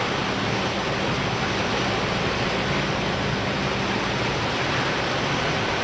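ERSA Versaflow 4050 selective soldering machine running: a steady, even whoosh of air with a faint low hum underneath.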